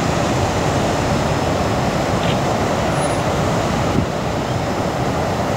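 Ocean surf breaking: a steady, even rushing noise of waves crashing on the reef, dipping slightly about four seconds in.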